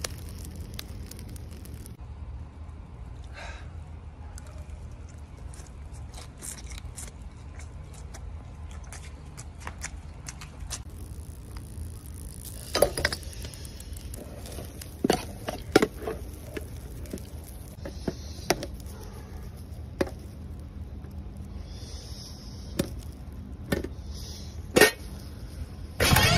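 Food cooking over a charcoal grill: scattered small crackles and pops over a steady low rumble, with a handful of louder metal clinks and knocks from cookware and utensils on the wire grate.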